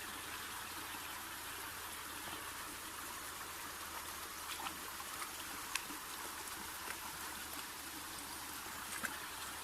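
Water running steadily, like a small stream or trickle, with a few faint clicks scattered through it.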